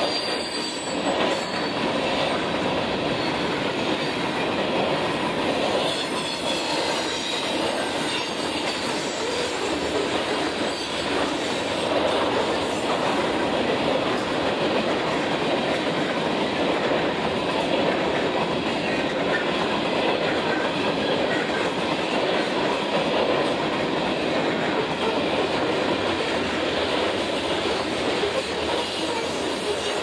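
Freight cars of a long mixed freight train, tank cars and covered hoppers, rolling past at a steady speed: a continuous, even rolling noise of steel wheels on the rails.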